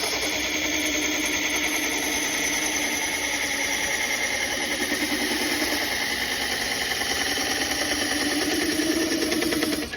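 A motor running steadily with a fast, even pulse and a slowly shifting pitch. It cuts off abruptly at the end.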